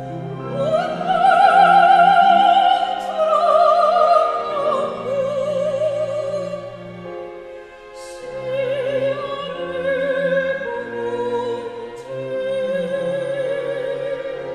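Soprano singing a Korean art song in operatic style with wide vibrato, over a string orchestra accompaniment. She sings two long phrases, the second beginning about eight seconds in.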